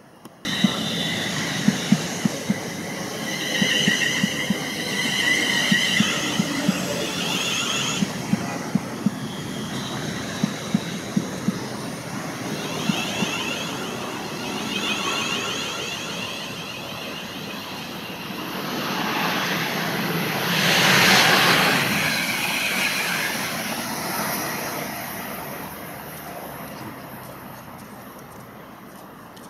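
Class 350 Desiro electric multiple unit passing at close range: rapid clicks of its wheels over rail joints, with a whining tone over them, a loud rush about 20 seconds in, then fading away.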